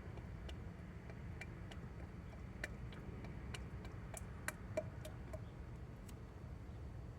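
Faint, irregular clicks and ticks from oil draining through a plastic filler funnel into the engine, over a low steady hum; the sharpest clicks come about two and a half seconds in and again near the middle.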